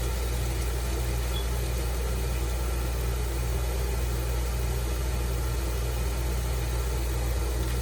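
Oil burner's motor and fuel pump running with a steady hum while the pump is bled through its loosened bleeder, with air still purging from the oil line.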